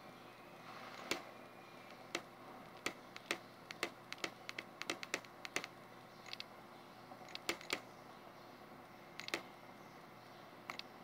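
A stylus tapping on a Nokia N900's touchscreen: about twenty short, sharp clicks at an uneven pace, coming fastest in the middle few seconds.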